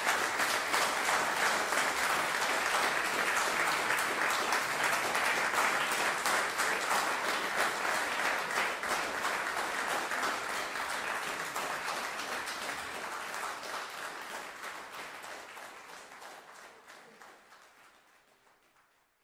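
Audience applauding: a dense, steady clapping that starts to thin out after about eleven seconds and dies away to nothing near the end.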